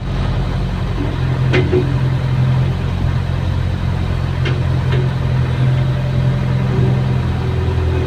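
Diesel engine of a CAT excavator running steadily, heard from inside the cab, with a few short knocks as the arm works the bucket in the mud.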